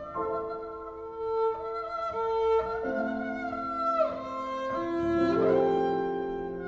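Slow bowed-string music: violin and cello holding long notes in several parts at once, with a couple of sliding notes partway through.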